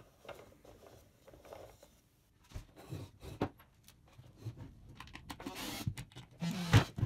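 Light clicking and knocking of wooden parts being handled, as the pistons and mechanism of a wooden model car engine are moved by hand, with a louder knock near the end.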